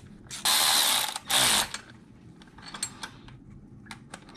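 Cordless electric ratchet (Milwaukee M12) running in two short bursts, about half a second in and again just over a second in, driving the oil filter housing bolts in.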